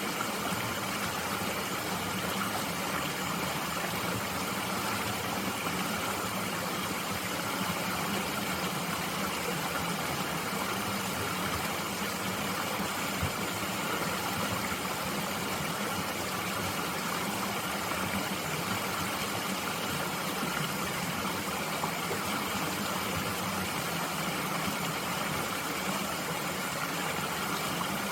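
Mountain stream flowing: a steady, even rush of water over rocks.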